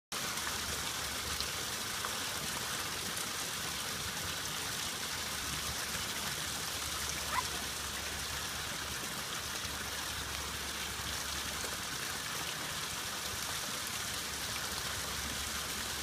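Water fountain splashing steadily into its pool, a constant even rush of falling water.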